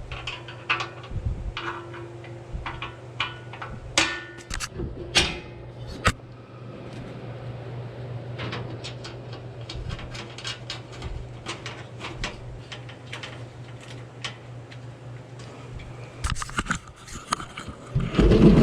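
Hand work on metal parts: scattered sharp clicks and clanks of tools and hardware over a steady low hum, busier near the end.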